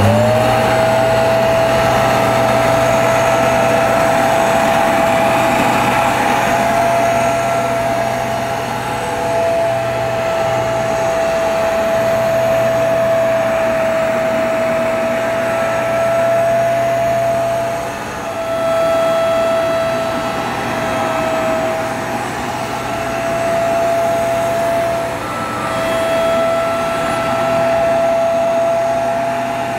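Bissell PowerClean compact upright carpet washer switched on and cleaning carpet: its motor spins up with a quick rise in pitch at the very start, then runs as a steady high whine over a low hum. Its level and pitch dip slightly now and then in the second half.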